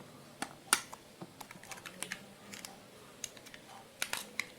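Scattered light plastic clicks and taps from handling wireless earbuds and their charging case, irregular and faint, with a small cluster near the end.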